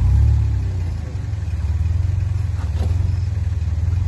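Jeep Wrangler's engine rumbling at low revs as it crawls up a rocky slope, swelling briefly at the start and then holding steady.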